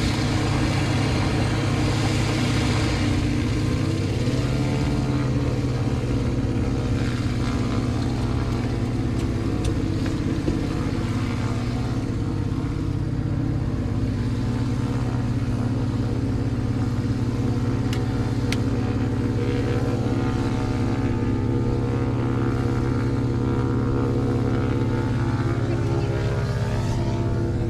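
Light aircraft's piston engine running steadily on the ground at an even speed.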